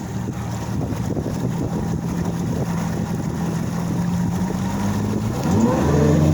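Yamaha 250 outboard motor on a bass boat running under way, then throttled up: about five and a half seconds in its pitch sweeps sharply upward and it grows louder as the boat accelerates. Wind rush on the microphone throughout.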